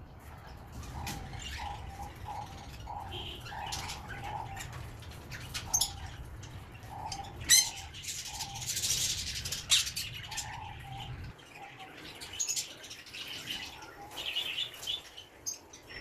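Caged pet birds chirping and calling over and over in short notes, with a few sharp clicks from the wooden perch and its fitting being handled against the wire cage.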